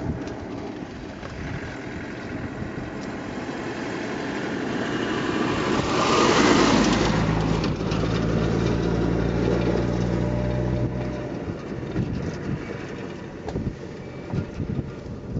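A motor vehicle's engine running close by. It grows louder to a peak about six seconds in, then holds a steady low hum for a few seconds before fading. Scattered knocks come near the end.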